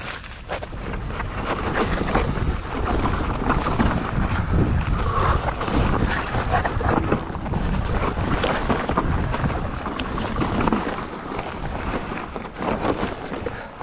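Wind rushing over an action-camera microphone with rough, rattling trail noise from a mountain bike riding fast downhill, building up over the first couple of seconds.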